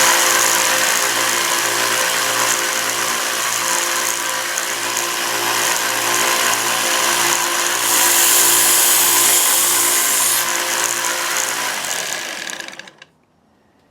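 Harbor Freight 1x30 belt sander running steadily with its motor hum while a steel kitchen knife blade is passed lightly over the belt, with a grinding hiss that grows louder about eight seconds in. Near the end the sander is switched off and winds down.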